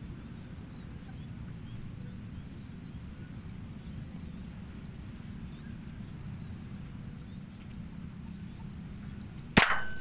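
A single air-rifle shot, a sharp crack with a brief ring after it, near the end. Before it there is only a steady high-pitched whine over low background rumble.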